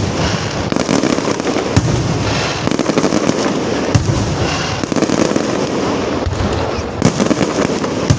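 Fireworks display: a dense, continuous barrage of crackling and bangs, with louder booms standing out about a second in, near two seconds, at four seconds and around seven seconds.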